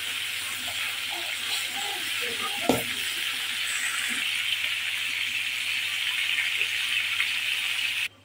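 Pieces of rohu fish sizzling as they fry in hot oil in a pan, a steady hiss, with one sharp knock about two and a half seconds in. The sizzle cuts off suddenly just before the end.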